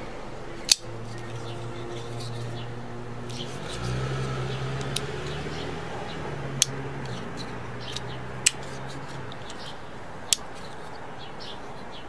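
Fox FX-590 Chiroptera folding karambit knife being opened and closed by hand: four sharp clicks a couple of seconds apart as the blade snaps into place, with softer ticks of handling between. A low hum sits underneath and stops after about nine seconds.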